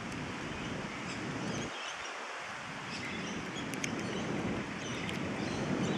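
Steady hiss of rain falling outdoors, with faint high bird chirps here and there.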